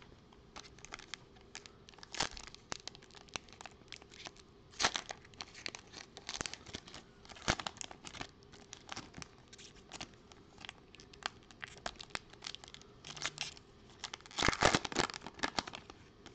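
Foil wrapper of a Panini Prizm trading-card pack crinkling and tearing as it is ripped open and peeled back, in a run of irregular crackles with the loudest crackling near the end.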